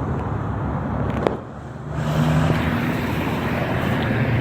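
Road traffic: a motor vehicle's engine running close by, dipping briefly and then swelling again about two seconds in, with a single sharp click about a second in.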